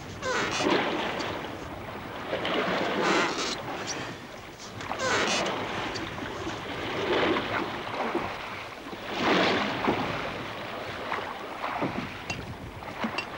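Sea water washing in regular surges about every two seconds, with wind.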